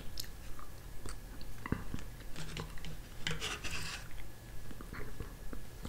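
Light clicks and short scrapes of a metal spoon scooping gelatin out of a small plastic snack cup, with quiet eating sounds.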